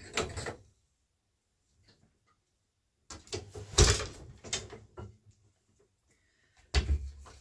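Wooden knocks and clacks of a floor loom being worked: a short clatter at the start, then, after a pause, a run of knocks with one loud thump as the beater is pulled against the cloth to beat in a tabby pick, and another sharp knock near the end as the shed is changed.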